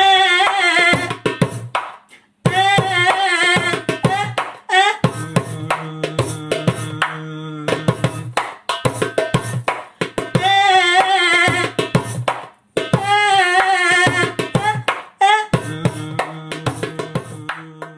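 Music: a wavering melody with strong vibrato over quick hand-drum strikes like tabla, in phrases broken by two short breaks.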